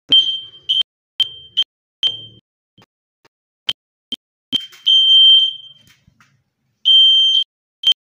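Smoke alarm sounding, a high-pitched beep repeating in uneven short and longer bursts, set off by smoke it has detected.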